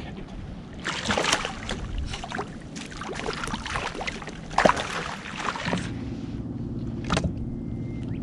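A hooked black sea bream thrashing in a landing net at the water's surface, with irregular splashing for several seconds. About two-thirds of the way in, a steady low motor hum sets in and holds.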